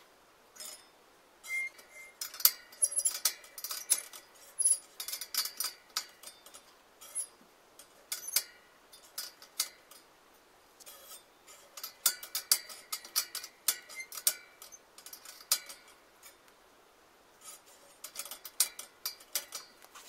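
Light metallic clicking and clinking of bicycle wheel truing: a spoke tool working at the nipples and the rim ticking against the truing stand's caliper. The clicks come in four quick runs with short pauses between them.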